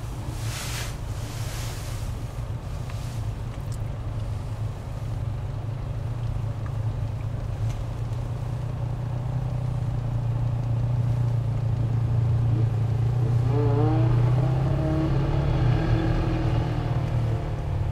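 Toyota pickup's engine running under throttle as the truck tries to climb a snowy rock ledge, its tires struggling for grip. The engine gets louder over the last several seconds, and a wavering higher whine joins it near the end.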